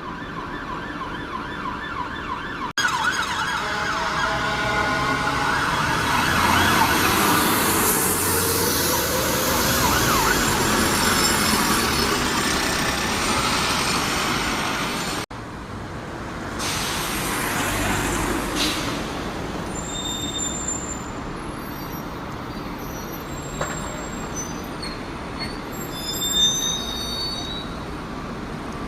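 Train passing with a whining motor tone that glides and steps in pitch, like an electric traction drive. The sound breaks off abruptly twice. In the last part, short high-pitched squeals come and go.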